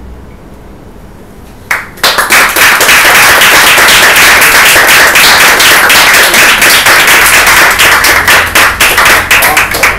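Audience applauding: a first clap or two just before two seconds in, then loud, dense clapping that thins out into separate claps near the end.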